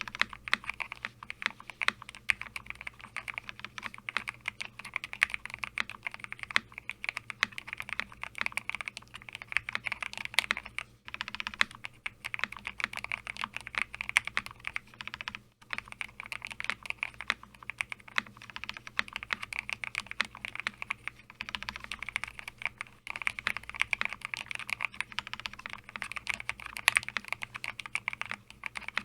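Continuous fast typing on a homemade mechanical keyboard with a Lego-brick case and hand-lubed Glorious Lynx linear switches: a dense, steady run of keystroke clacks, with two brief pauses about eleven and fifteen seconds in.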